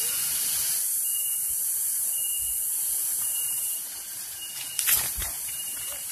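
Steady high-pitched hiss, with a few footsteps thudding on grass close by about five seconds in.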